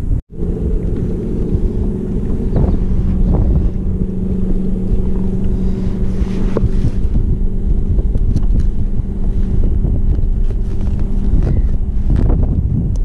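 Wind buffeting the action-camera microphone over open water, with a steady low boat-engine hum underneath that changes about a second before the end. The sound cuts out for an instant just after the start.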